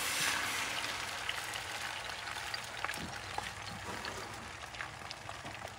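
Beaten eggs sizzling as they are poured into melted butter in a nonstick frying pan, a hiss with small scattered pops that is strongest at first and slowly dies down as the egg spreads and settles.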